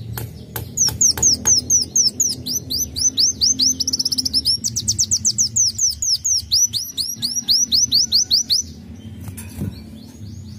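Sunbird (kolibri wulung) singing a long run of sharp, high chirping notes repeated about three to four times a second, speeding into a quicker trill midway. The song stops about two seconds before the end, leaving a few faint calls.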